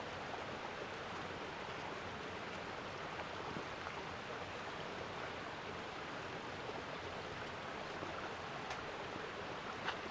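Steady rushing of a mountain river running over rocks, with one short click near the end.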